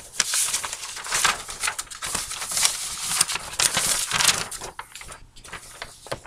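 A sheet of paper rustling and crinkling as it is handled close to the microphone: a run of irregular scratchy rustles that dies down about five seconds in.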